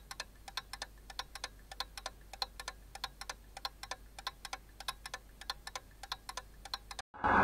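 Quiet, regular ticking like a clock, several ticks a second. It cuts off about seven seconds in, and a loud rushing, rumbling noise starts abruptly near the end.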